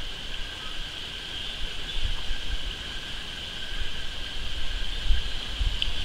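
Outdoor ambience: uneven low wind rumble on the microphone under a steady high-pitched drone.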